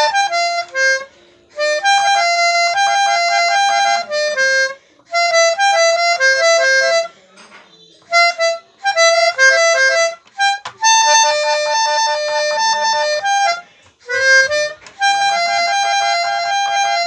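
Basuri telolet bus horn playing a winding melody in pianika-like notes. It plays in phrases of about one to three seconds, stepping between held notes, with short breaks between phrases.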